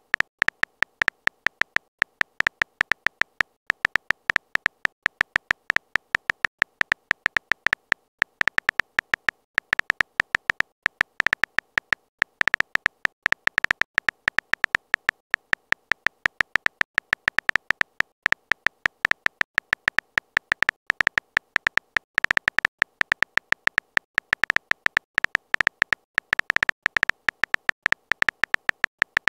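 Simulated phone-keyboard typing sound: a rapid, irregular stream of short high beeps, one for each letter as a text message is typed out.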